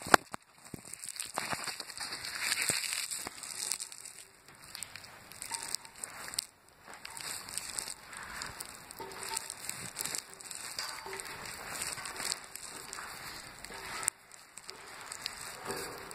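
Handling noise of a phone held and carried in the hand: uneven crackling rustle with many scattered clicks and taps, and a sharp click right at the start.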